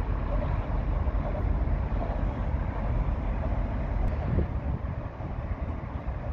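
Wind buffeting the microphone: a heavy, irregular low rumble, over a steady hum of distant city traffic.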